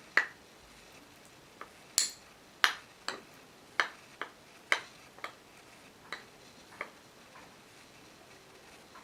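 A tablespoon clinking against a dish about a dozen times in an irregular series, as two tablespoons of honey are spooned into the banana-and-water mixture. The clinks thin out and stop near the end.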